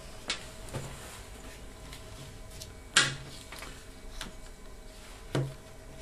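Plastic housing of a hair dryer being handled and pried apart, giving a few sharp clicks of plastic, the loudest about three seconds in.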